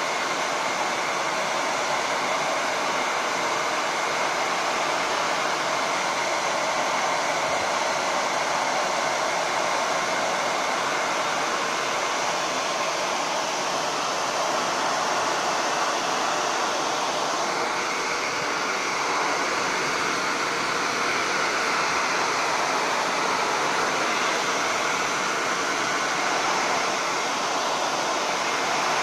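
Handheld hair dryer running steadily, blowing hot air to soften the adhesive holding a laptop's display panel.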